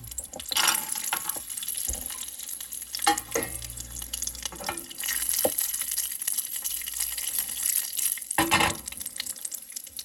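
Cashews sizzling in ghee in a stainless steel pan, with a steady hiss and a few short scrapes as a spoon stirs them against the pan.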